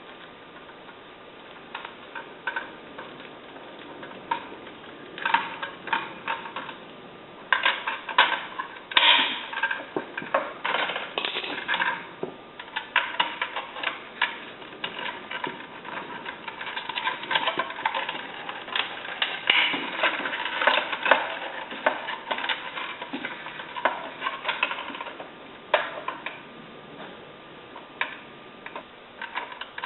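Pliers and electrical wires clicking, scraping and rattling against a metal gang box and a plastic wire connector as the wires are pulled out and refitted. The clicks come in irregular bursts, sparse at first and busier from about five seconds in.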